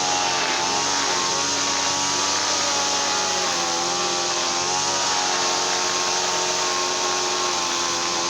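Small petrol brush cutter engine running at high speed. Its pitch wavers up and down a little for the first few seconds, then holds steady.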